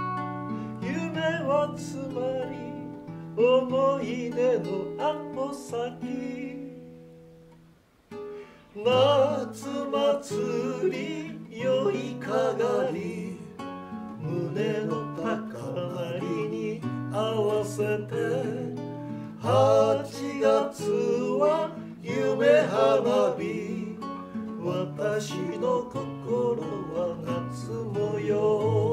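Acoustic guitar music. It fades away about seven seconds in and a new strummed section starts about a second later.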